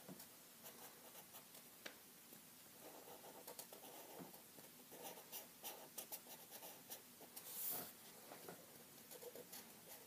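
Faint scratching and tapping of a felt-tip marker on paper in quick, short strokes as it colours in a drawing, with one longer swish nearly eight seconds in.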